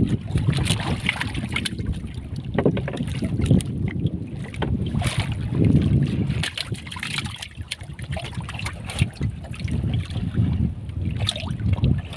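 Wind buffeting the microphone on a small fishing boat, mixed with irregular knocks and handling noise as a hand-hauled longline brings a fish aboard.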